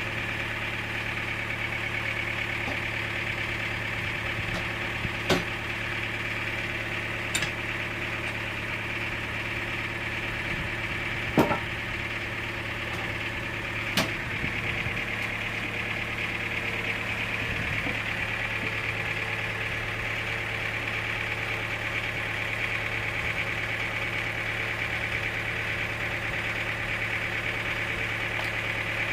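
Sawmill machinery running steadily with a constant low hum and a higher whine, broken four times by a short sharp knock.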